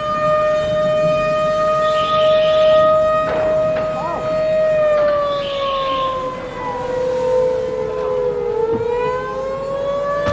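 Civil-defense warning siren sounding one long, steady wail that slowly sags in pitch past the middle and climbs back near the end, with a second siren tone crossing it.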